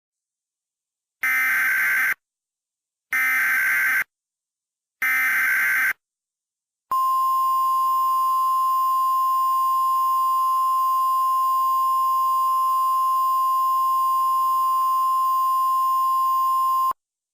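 Emergency Alert System SAME header: three identical screeching digital data bursts of about a second each, separated by short gaps. These are followed by a single steady attention tone on one pitch, held about ten seconds and cut off sharply, signalling that an alert message follows.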